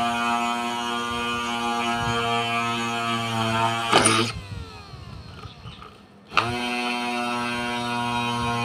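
Homemade drill's 12 V 775 DC motor running with a steady whine. About four seconds in it is switched off with a click and winds down, its pitch falling. About two seconds later it is switched on again with a click and is straight back at full speed.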